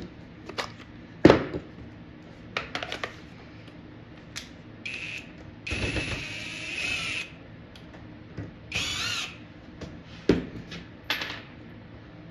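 Cordless drill-driver running in three short bursts as it backs screws out of the cabinet's wooden back door, the middle burst the longest at about a second and a half. Sharp knocks come between the bursts, the loudest about a second in.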